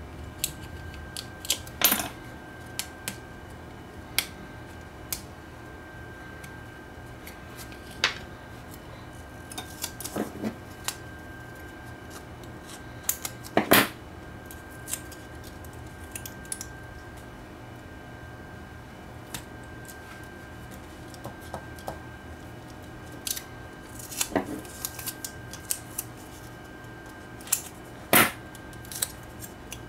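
Strips of heat-proof aluminium foil tape being cut, peeled and pressed onto a circuit board: scattered snips, clicks and crinkles, with a few sharper snaps.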